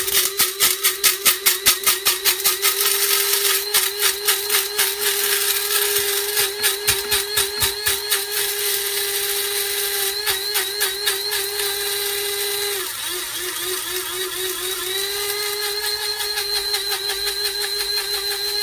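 Electric blade coffee grinder running, grinding roasted dandelion root and burdock root: a steady high motor whine with hard pieces rattling against the blade and cup, the rattle thinning out as the roots break down to powder. About 13 seconds in the motor dips and sputters briefly, then runs up to speed again.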